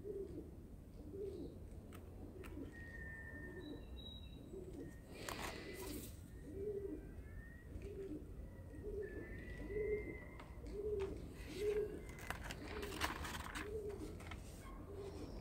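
A pigeon cooing, soft low coos repeated steadily a little under twice a second, with a few brief paper rustles as sketchbook pages are turned.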